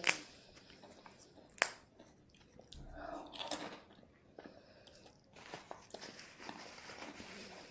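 Crunching of crisp food, with two sharp clicks about a second and a half apart.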